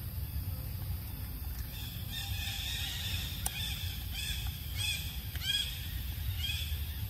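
A bird calling a string of short, arched notes, about two a second, starting about two seconds in, over a steady low rumble of outdoor background.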